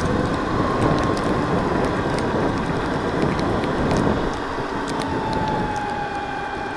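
Landmoto electric motorcycle underway: a thin motor whine over steady wind and tyre rush. The whine's pitch drops slightly about five seconds in.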